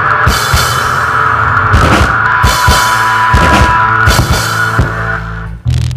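Rock band playing live: drum kit strikes and cymbals under held guitar tones. The music drops off with one final hit near the end.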